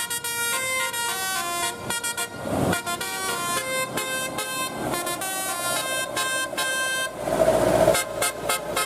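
Tour-bus telolet horn, a Basuri-type musical horn set, playing a melody of stepped notes. About seven seconds in there is a louder noisy burst, followed by a run of quick short notes.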